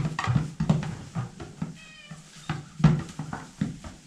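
Goats moving about in a barn: a run of irregular dull thumps and knocks, with one short high-pitched cry about two seconds in.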